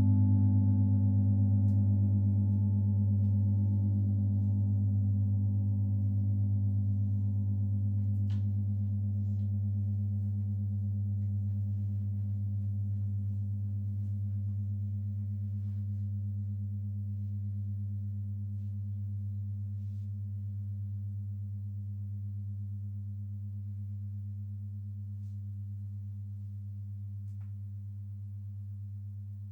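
Paiste symphonic gong ringing out after a strike, a deep, steady hum of low tones fading slowly. The higher overtones die away first, with a few faint clicks.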